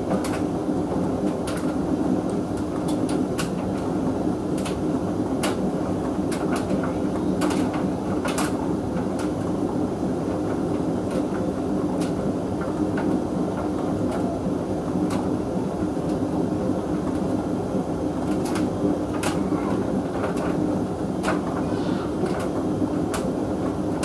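Hoover VHV680C vented tumble dryer running with a load of mixed fabrics: a steady motor and drum hum, with irregular light clicks and knocks as the load tumbles in the drum.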